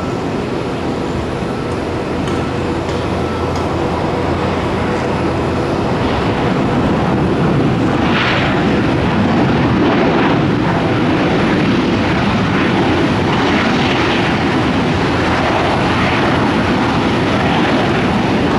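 Engines of a Boeing 737 airliner at takeoff power during its takeoff roll: a steady jet engine noise that slowly grows louder.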